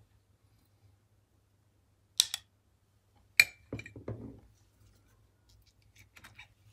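Metal spoon clinking against dishes while a rasgulla is moved into a ceramic bowl: two sharp clicks about two seconds in, a louder ringing clink a second later followed by a few soft knocks. Faint light clicks near the end as the spoon cuts into the rasgulla.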